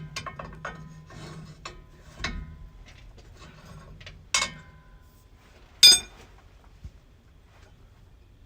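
Hand tools working on metal drivetrain parts: light clinks and scraping, a clank about four seconds in, and a sharp ringing metal strike near six seconds.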